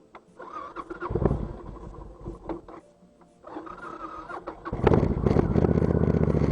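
Motorcycle engine being started with the electric starter: it fires briefly about a second in and dies, is cranked again, and catches near the end, then runs steadily.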